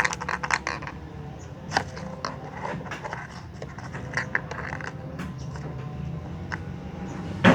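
Small plastic toy kitchen pieces being handled and unpacked: irregular light clicks, taps and scrapes of plastic.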